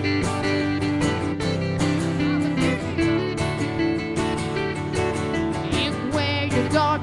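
Live country band playing an instrumental passage: strummed acoustic guitar over electric bass, with a voice starting to sing near the end.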